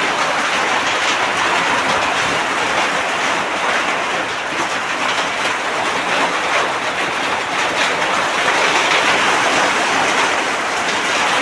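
Heavy rain pouring down, a loud steady rushing hiss without a break.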